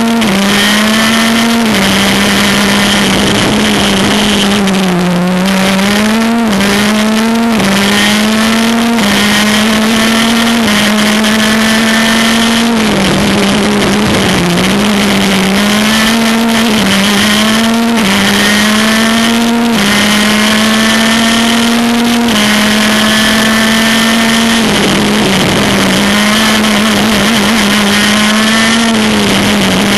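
Maxter 125cc two-stroke shifter kart engine at racing speed, heard onboard. The pitch climbs steadily and drops sharply again and again as it is shifted up through the gears, and several times falls lower and swings back up as the kart slows for a corner and accelerates out.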